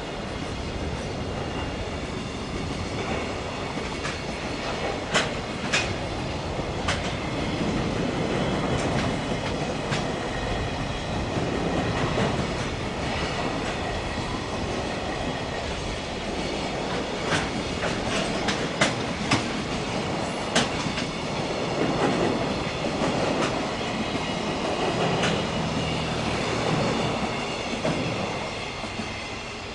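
Long freight train hauled by an EF510 electric locomotive rolling past, a steady rumble of wheels on rail with clusters of sharp clacks as the wagons' wheels cross the rail joints. It fades a little near the end.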